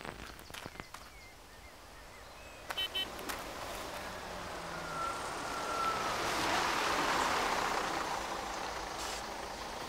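A motor vehicle approaching on a dirt road, its noise swelling to its loudest about seven seconds in and then easing off, with a short thin squeal about five seconds in. A few light steps and ticks come before it.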